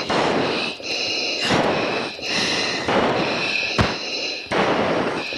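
Hard, rapid breathing through oxygen masks heard over an F-16's cockpit intercom. Quick breaths alternate with hissing, whistly pulls through the mask regulator about once a second, typical of crew straining against G. There is one sharp thump about four seconds in.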